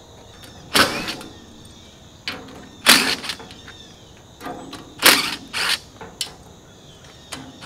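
Cordless power driver running in several short bursts a second or two apart, working the screws at the hub of an air-conditioner condenser fan guard.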